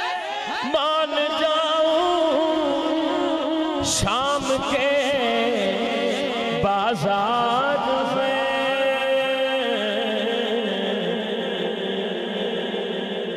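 Male naat reciter singing into a microphone, drawing long, ornamented notes out with no clear words; a little past the middle he holds one note steady for a second or two.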